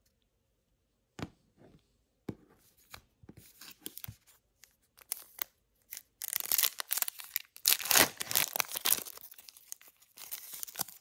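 A few sharp clicks and light handling, then about six seconds in a trading card pack's wrapper is torn open and crinkled, dense and loud for a few seconds before easing off.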